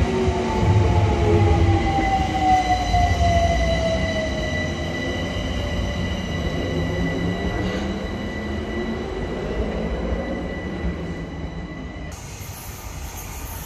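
London Overground Class 378 electric multiple unit running past, with heavy wheel rumble and electric motor whines falling in pitch over the first few seconds. A thin high steady squeal runs under it. The train fades as it moves away, and the squeal stops near the end.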